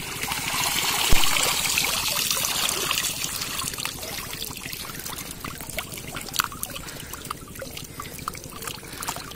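Water pouring and then dripping out of a woven bamboo fish trap as it is lifted clear of shallow water: a heavy rush for the first few seconds with a thump about a second in, thinning to scattered drips.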